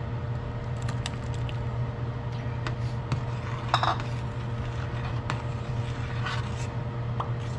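Saba banana chunks scraped from a bowl into a pot of coconut milk, then a metal spoon stirring and scraping against the stainless steel pot with scattered clicks and one louder ringing clink near the middle, over a steady low hum.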